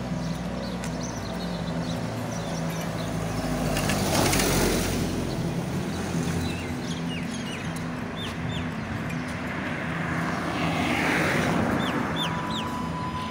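Two road vehicles passing on the street, the first about four seconds in and the second a little before the end, each a swell of tyre and engine noise. Small birds chirp throughout in short falling calls.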